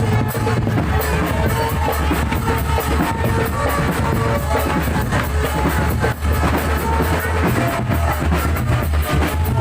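Loud music with a steady, driving drum beat and a heavy bass line.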